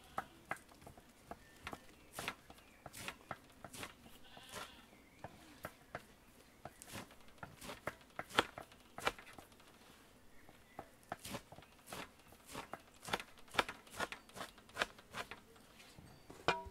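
Kitchen knives chopping garlic and fresh herbs on a wooden cutting board: irregular sharp knocks, several to the second in places, some louder than others.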